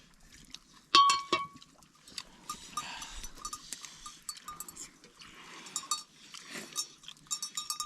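Bells worn by a flock of sheep clinking and clanking irregularly as the animals move about. The loudest clanks come about a second in.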